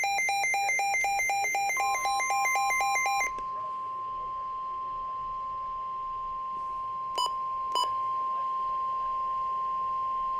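Emergency alert tones on NOAA Weather Radio: rapid electronic beeping alternating between a lower and a higher pitch, stopping about three seconds in, overlapped from about two seconds in by the steady single-pitch 1050 Hz warning alarm tone, broken twice by short clicks near the middle. The tone announces a special marine warning.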